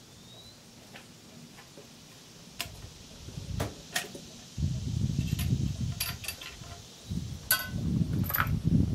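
Short metallic clicks from the Lyman Ideal rifle's falling-block action and hammer as it is handled and shouldered, one of them near the end ringing briefly, over a low rumbling noise that grows louder about halfway through. No shot is fired.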